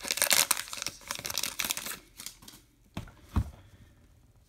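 Baseball card pack wrapper crinkling and tearing as it is pulled off the cards, for about the first two seconds. Then it goes quiet apart from two short clicks as the stack of cards is handled.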